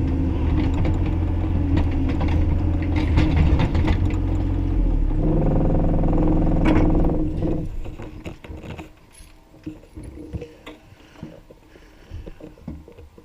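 Bobcat E35i compact excavator's diesel engine running, its note shifting about five seconds in, then dying away shortly before eight seconds as it shuts down. Afterwards only faint scattered clicks and knocks.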